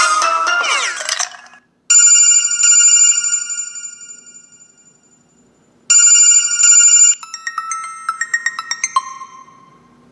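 Casio G'zOne Commando smartphone playing ringtones: the end of a melodic tone with sliding notes, then an electronic telephone-bell ring heard twice with a pause between, followed by a short run of falling chime notes ending on one held, fading tone.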